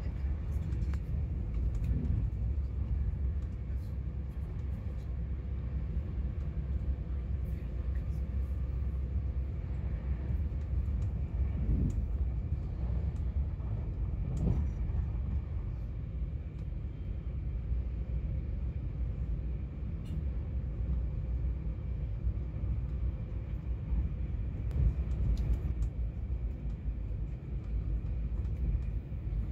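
Inside a passenger train carriage running at speed: a steady low rumble of wheels on rail, with faint clicks and a few brief swells in the rumble.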